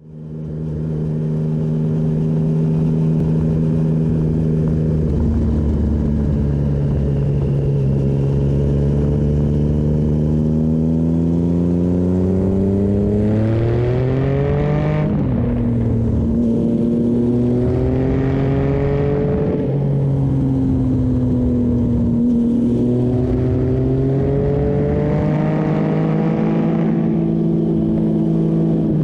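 Triumph Speed Triple 1050's 1050 cc inline three-cylinder engine running under way, heard from the bike itself. It holds a steady pitch at first, then from about halfway through the revs climb and drop back several times as the rider opens the throttle and changes gear.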